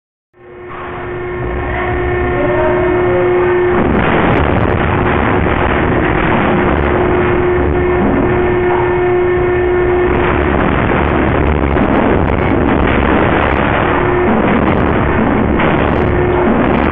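Loud, steady industrial machinery noise of a slaughterhouse stunning area, with a steady hum running through it, coming in about half a second in.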